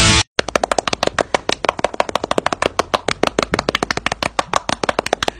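A seal patting its belly with its front flippers, fast and even at about ten slaps a second. A burst of rock music cuts off just before the slapping starts.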